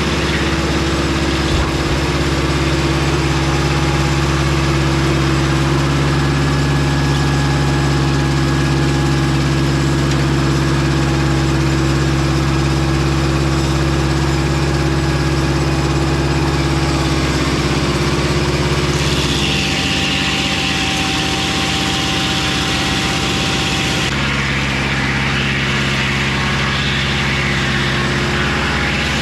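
Engine of a Mobile Dimension circular-blade sawmill running steadily. About two-thirds of the way through, a higher hiss rises over the engine for some five seconds, then drops back.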